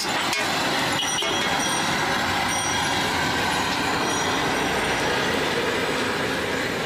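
A metal spatula scrapes and knocks against a steel wok a few times in the first second or so, as fried noodles are scraped out onto a plate. Under it runs a steady, loud rushing noise.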